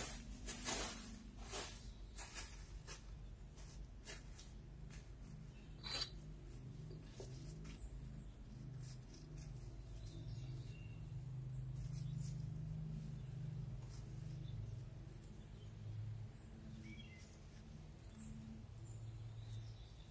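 Bricks knocking and scraping against each other as they are set in place as edging, with handling noise on plastic sheeting: several sharp clicks in the first few seconds, the loudest about six seconds in. A low hum swells in the middle and fades.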